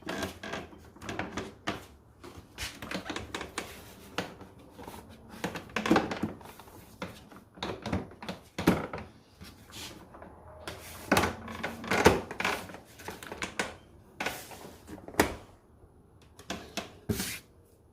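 Plastic air filter housing being pushed up into place, with irregular clicks, knocks and rattles as its latches are worked into line and snapped on.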